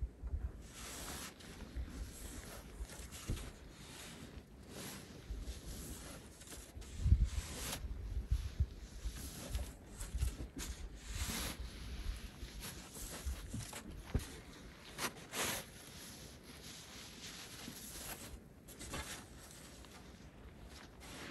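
Snow shovel driven into firm, packed roof snow in irregular strokes, with swishing and scraping as the cut blocks slide down the roof.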